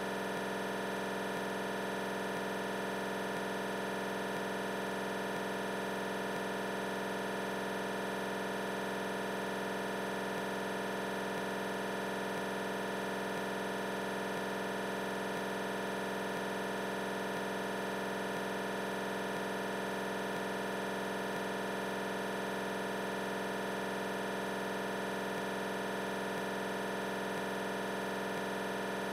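A steady electronic drone of many held tones over a hiss, with no beat and no change in pitch or level.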